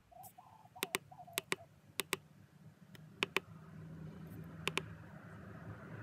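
Keypad buttons on a Husqvarna Automower 315 robotic mower's control panel being pressed five times, each press a quick double click.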